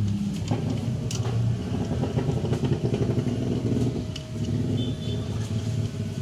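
An engine running steadily with a low, slightly wavering hum, and a few light clicks and taps over it.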